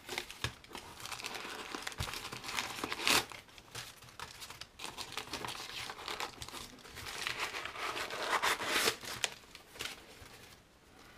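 White packing paper crinkling and rustling as it is crumpled and pulled out of a cardboard box, in irregular bursts, loudest about a third of the way in and again past the middle, tailing off near the end.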